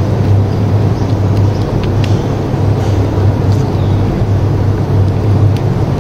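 A motor engine running with a steady low hum that does not change in pitch, with a few faint clicks over it.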